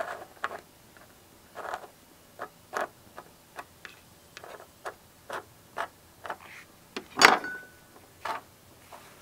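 Irregular light clicks and taps from handling small objects, roughly one or two a second, with one louder knock about seven seconds in.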